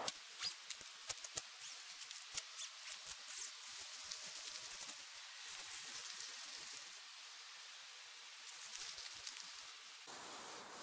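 Tent fabric rustling softly as it is handled and pulled back, with scattered light clicks and taps during the first few seconds.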